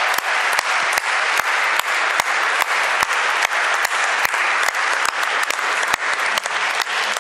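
Audience applauding in a large church hall, with some loud single claps close by standing out at a steady beat of about two to three a second.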